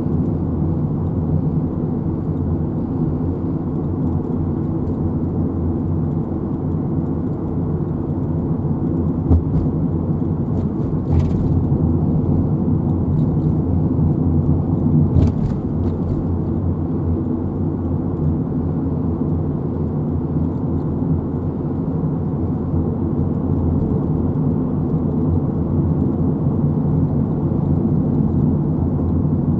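A car running, with a steady low engine and road rumble and a couple of brief clicks about eleven and fifteen seconds in.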